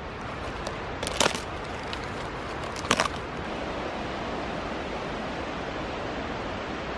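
A steady rushing outdoor noise in woodland, with two short sharp cracks, one about a second in and one about three seconds in.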